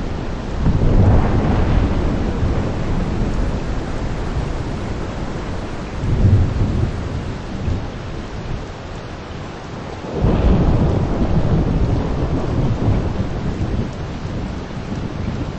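Steady heavy rain shower with thunder rumbling three times: a long rumble starting about a second in, a shorter one around six seconds, and another long one starting around ten seconds.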